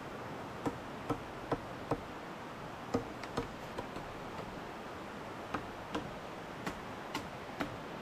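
Machete blade chopping into a bamboo pole: about thirteen sharp, hollow knocks in three quick runs, a little under three a second, over a steady background hiss.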